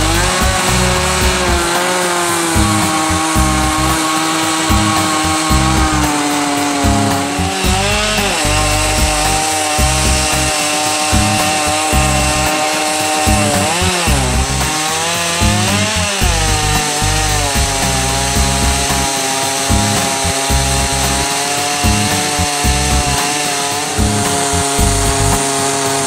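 Stihl MS391 two-stroke chainsaw on a Logosol Farmer's Sawmill chainsaw mill, running at full throttle as it rips lengthwise through an aspen log to cut a slab. The engine note holds steady, dipping and recovering briefly under load a few times near the middle.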